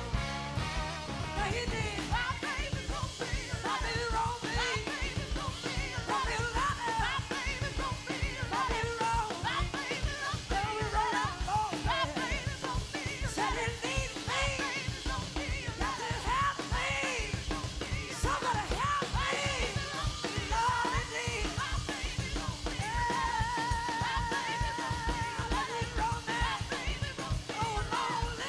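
Live blues-rock band playing, with a woman singing over drum kit, bass and electric guitar. A long held note with vibrato comes about three quarters of the way through.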